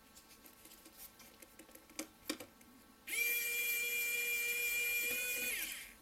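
Wowstick electric precision screwdriver running, a steady high whine for about two and a half seconds as it backs out a screw, sagging in pitch as it stops near the end. A few light clicks of handling come before it.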